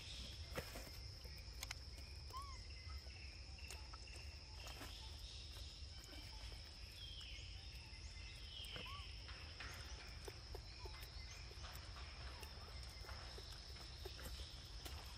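Steady high-pitched insect drone, with a few short high chirps, a couple of them falling in pitch around the middle, and scattered light taps and rustles.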